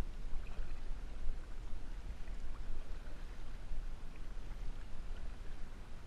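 Kayak paddling: water splashing and dripping off the paddle blade, with faint scattered drips, over a steady low rumble.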